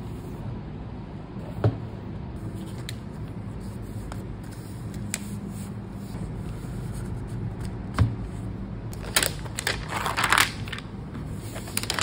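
Unboxing handling sounds of a MacBook Pro: a couple of sharp knocks as the box and laptop are handled, a few light ticks, then crinkling and rustling of the laptop's protective wrap being pulled off near the end.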